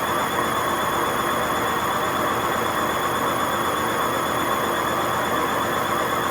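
Hotpoint WMA50 washing machine at full spin, its drum bearings giving off a steady high-pitched screech and whine with a slow wobble over a rumble: the sound of very bad, worn drum bearings.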